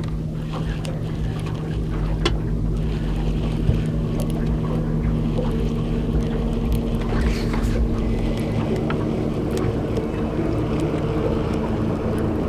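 Boat's outboard motor running steadily at low trolling speed, with a few light clicks over it.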